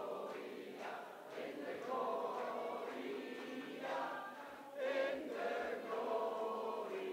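A group of people singing together in unison, with long held notes.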